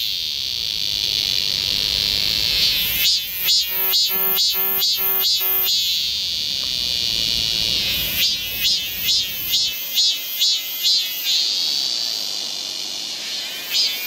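Cicadas singing: a steady high buzzing drone, broken twice (a few seconds in and again around eight seconds in) by a loud pulsed call at about two and a half pulses a second.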